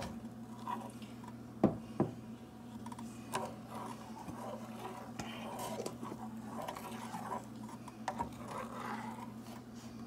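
Metal spoon stirring thick besan sheera in a steel pan, with soft scraping and light taps against the pan and two sharp clinks about two seconds in. A steady low hum runs underneath.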